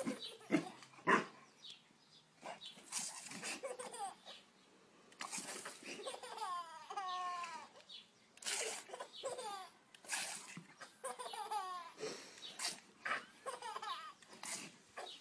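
A toddler laughing, giggling and babbling in short bursts, broken by brief hisses of spray from a garden-hose nozzle every few seconds.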